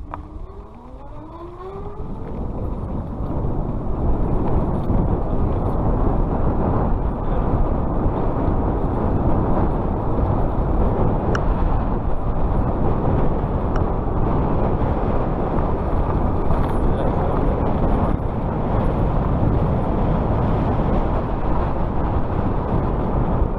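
Electric bike's 500 W brushless hub motor whining upward in pitch as it accelerates, then a steady loud rush of wind and riding noise at speed.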